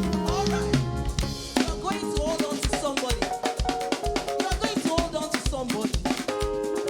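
Upbeat gospel praise music, with a drum kit keeping a steady fast beat of snare and bass drum hits, about four a second, under a melodic instrumental line.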